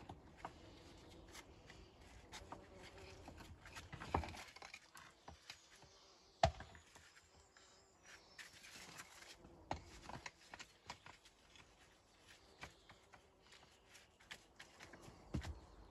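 Stones being handled and set in a dry stone wall: scattered light knocks and clicks, with a few sharper knocks, the loudest about six and a half seconds in.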